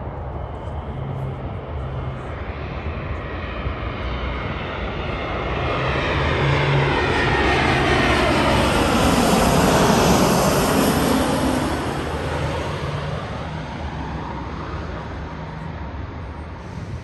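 Airbus A320neo with Pratt & Whitney geared turbofan engines passing low overhead on landing approach: the jet noise swells to a loud peak about ten seconds in, then fades, with a rushing sound that sweeps in pitch as the aircraft goes over.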